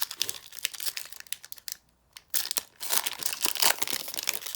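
Foil wrapper of a Disney Lorcana booster pack crinkling as it is handled and torn open. There is a short lull about two seconds in, then a louder stretch of crinkling.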